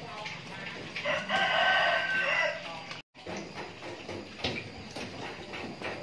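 A rooster crowing once: a single drawn-out call of about a second and a half, starting about a second in and louder than anything else, over faint scattered knocks. The audio drops out for an instant about three seconds in.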